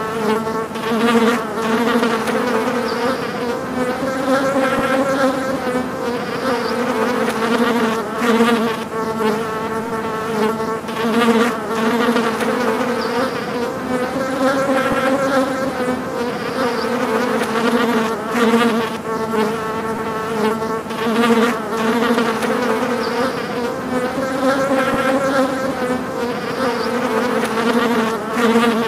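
Flies buzzing in flight: a continuous, droning wing buzz with a low pitch that gently wavers up and down.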